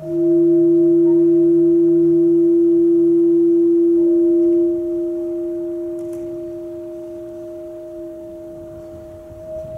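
Ambient drone of pure, sustained tones. A new, lower tone sets in sharply at the start and holds steady for about five seconds before fading, over a higher tone that holds throughout.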